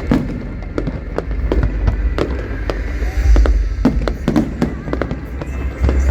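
Fireworks going off in an aerial display: an irregular run of sharp bangs and crackles, about two or three a second, over a steady deep rumble.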